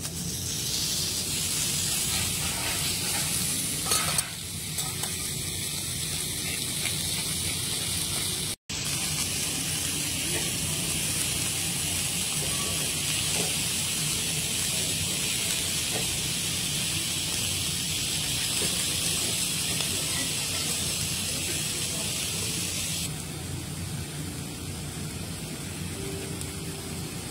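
Beef steaks sizzling on a hot flat steel griddle: a steady, hissing sizzle. It cuts out for a split second about a third of the way through and shifts in loudness twice where the footage is edited.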